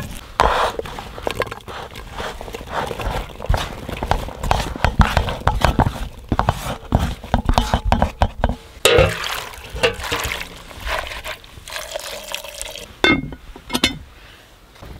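Cooking sounds from cast iron pots: food stirred and scraped with a stick, then chopped wild apple pieces tipped from a plate into a cast iron pot in an uneven clatter, with two sharp metal clinks near the end.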